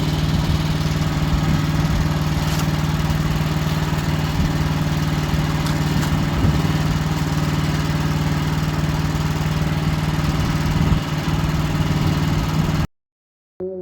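Wood-Mizer LX55 sawmill's engine running at a steady speed. The sound cuts off abruptly about a second before the end, and keyboard music starts just after.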